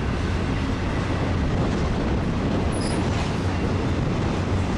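Double-stack intermodal well cars of a BNSF freight train rolling past close by, a steady rumble of wheels on rail. A brief high-pitched squeal comes about three seconds in.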